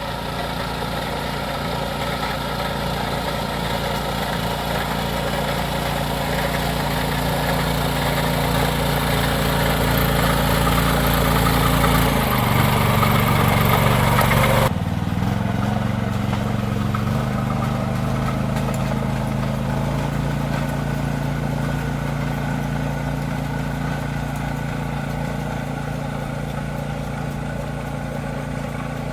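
Rice transplanter's small engine running steadily. Its note shifts about twelve seconds in, then the sound changes abruptly and settles to a steadier, slightly lower note.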